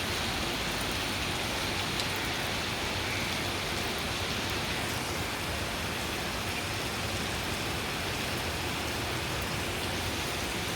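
Heavy rain falling steadily, an even hiss of rain on surfaces with no breaks.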